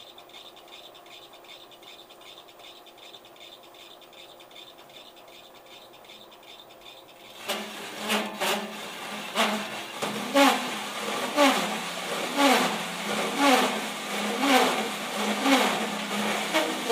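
Bridgeport milling machine spindle running with a steady whine, then about seven and a half seconds in a large hole saw in its drill chuck bites into the enclosure. It cuts with a rough scraping and a squeal that falls in pitch about once a second.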